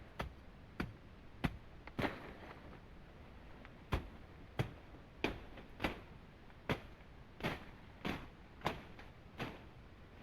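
A tool striking wood or bamboo again and again: sharp knocks about one and a half a second, with a short break about two seconds in, over a steady faint hiss.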